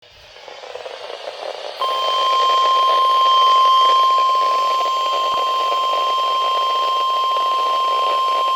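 Radio static hiss swelling up, then about two seconds in a steady single-pitch alert tone comes on and holds without a break. It is the weather radio warning alarm tone that comes before a broadcast warning, here a flood warning.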